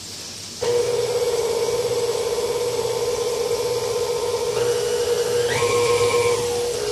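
Electric stand mixer switched on about half a second in, its motor running with a steady whine. A higher tone joins for a moment about five and a half seconds in, then dips away.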